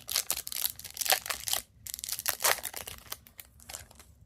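A hockey card pack's wrapper being torn open and crinkled by hand, a run of quick crackling rips with a short pause about halfway through, dying away near the end.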